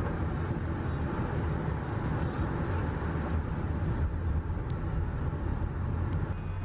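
Steady road and engine noise inside a car's cabin at highway speed, with two faint ticks in the second half.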